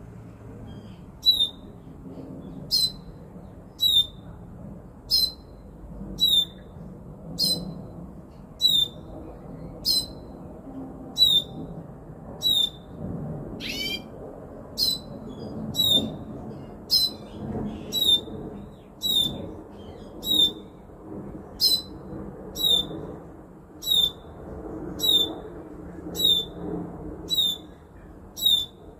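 A caged Magellanic (hooded) siskin repeating one short, high call note about once a second, with a single longer, sweeping call about halfway through. There is a low rumbling background noise underneath.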